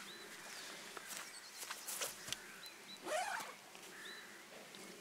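Short high chirps, like birds calling, sound several times, with one louder rising call about three seconds in, over scattered clicks and rustles from gear being handled.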